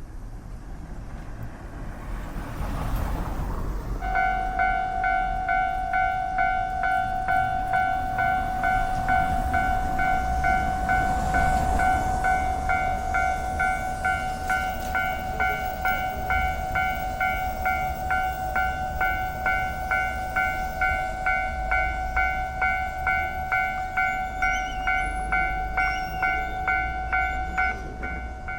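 Train rumbling on the rails, growing louder over the first few seconds; from about four seconds in, a steady high warning tone pulses evenly, a little under twice a second, above the rumble.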